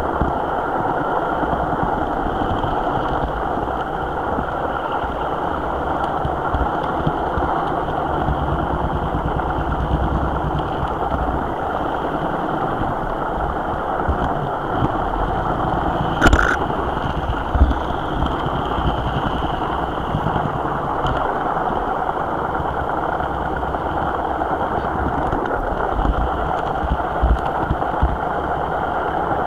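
HO scale model train running along the track, heard up close from a camera riding on the train: a steady mechanical running noise with low rumble, broken by a sharp click a little past the middle and another soon after.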